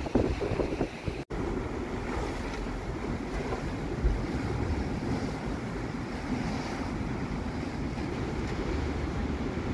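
Rough sea surging and washing up a stone slipway, a steady rushing surf, with strong wind buffeting the microphone. The sound drops out for an instant about a second in.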